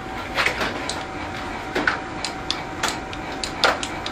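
Light, irregular clicks and taps that come quicker and sharper in the second half, from the left handlebar switches of a Hawk 250 motorcycle being flicked to test lights that are not working. A faint steady hum runs underneath.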